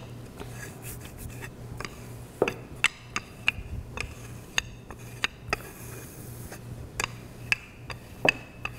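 Rolling pin working pastry dough on a wooden cutting board: a soft rubbing with about a dozen sharp, unevenly spaced light knocks and clicks.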